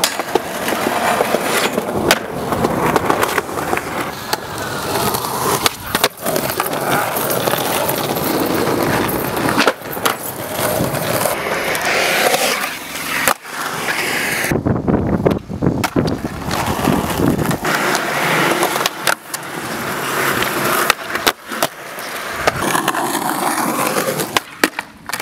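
Skateboard wheels rolling on concrete, with many sharp clacks of the board popping and landing. The sound changes abruptly several times.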